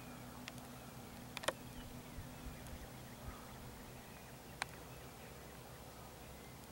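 Faint outdoor ambience with faint chirps and a few sharp isolated clicks, the loudest about a second and a half in and another near the end.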